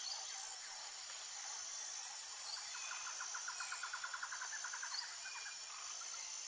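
Outdoor nature ambience: a steady high-pitched insect chirring with a few short high chirps, and a rapid trill of about nine pulses a second starting a little under three seconds in and lasting about two seconds.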